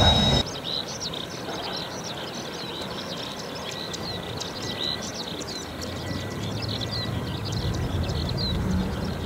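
Birds chirping and twittering continuously, with a low rumble underneath that grows a little louder after about six seconds. A loud high-pitched whine cuts off abruptly about half a second in.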